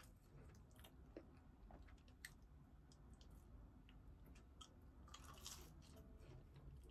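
Faint chewing of chips (french fries), with small scattered mouth clicks, barely above room tone.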